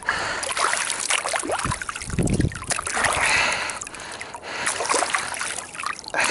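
Water splashing and trickling while a perch is handled and rinsed, with scattered small clicks and knocks and a short low rumble a couple of seconds in.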